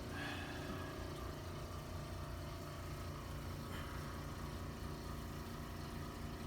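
Steady low mechanical hum with a faint throbbing, as from a running machine or motor.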